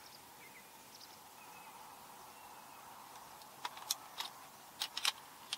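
Faint outdoor background with a few soft bird chirps, then in the last two seconds a run of about seven sharp clicks and small knocks.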